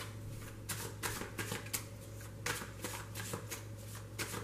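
Tarot cards being shuffled by hand: an irregular run of quick papery card slaps and riffles, several a second.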